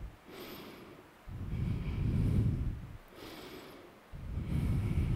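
A person breathing slowly and steadily close to a headset microphone: breaths alternate between quieter, hissier ones and louder, lower, rushing ones, with two of the louder ones, each about a second and a half long.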